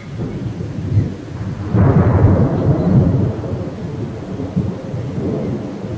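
A clap of thunder breaks about two seconds in and rumbles away over the next second or two, over the steady noise of a heavy rainstorm.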